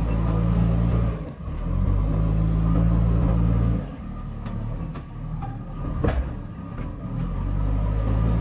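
JCB backhoe loader's diesel engine running hard under hydraulic load as the front bucket lifts a load of soil, dipping briefly about a second in. It eases off from about four seconds and picks up again near the end. A single sharp knock about six seconds in, as the bucket tips its soil into the tipper's steel body.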